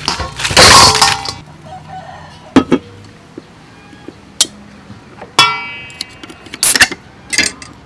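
Crab pieces tipped from a stainless strainer into a large metal bowl, the shells clattering against the metal, the loudest sound, about half a second to a second and a half in. Then sharp metallic clicks as a soda water can's tab is pried up with a utensil, the can popping open with a short fading hiss about five and a half seconds in, and a few more clicks near the end.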